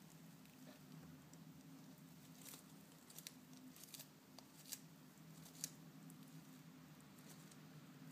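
Horsfield tortoise biting and tearing crisp lettuce leaves with its beak: about half a dozen faint, sharp crunches and snips, loudest a little past the middle, over a low steady hum.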